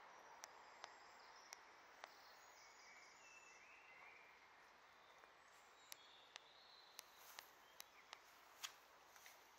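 Faint outdoor ambience near silence: a steady soft hiss with scattered single sharp ticks at irregular moments and a few faint distant bird chirps.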